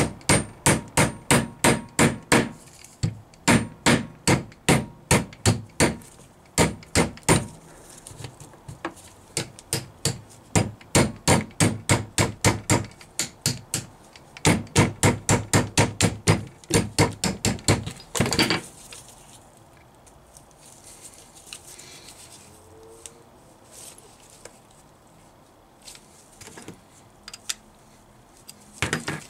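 Hammer tapping repeatedly on a Rover V8 rocker shaft assembly held upright, driving its parts along the shaft, at about four blows a second in runs of a few seconds with short pauses. The tapping stops after about 18 seconds, leaving only a few faint clicks of parts being handled.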